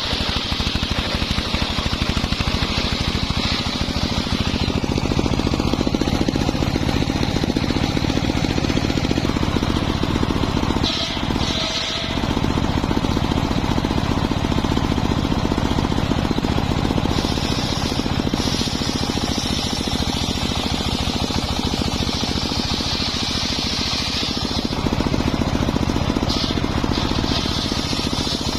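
Homemade circular saw rig running steadily while wood is cut, its higher-pitched cutting sound coming and going in long stretches, with a brief dip about eleven seconds in.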